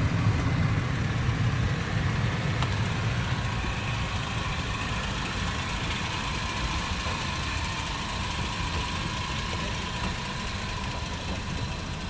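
Toyota Prado's engine running at low revs as the vehicle crawls over a log ramp directly above, a steady low rumble that is loudest near the start and eases off toward the end.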